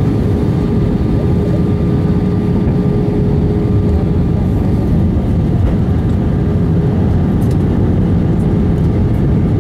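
Steady engine and airflow noise inside the passenger cabin of an Airbus A320 in flight, with a steady hum under it.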